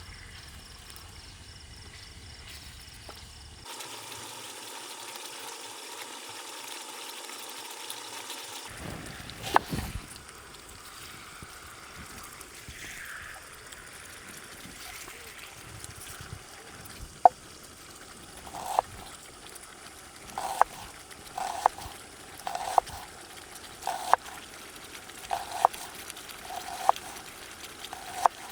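Marinated chicken cooking in a non-stick pan, a steady wet bubbling sizzle as its water cooks off. About halfway through, short knocks start and repeat roughly once a second.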